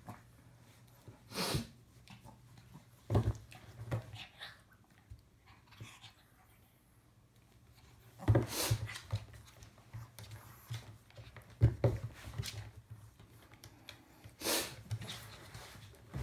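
Shih tzu puppy play-fighting with a person's hand: short bursts of dog breathing every few seconds, the strongest about 8 and 14 seconds in, with a few short knocks between them.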